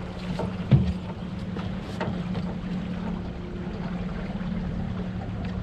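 A boat's motor running with a steady hum over wind and water noise, with one sharp knock about a second in.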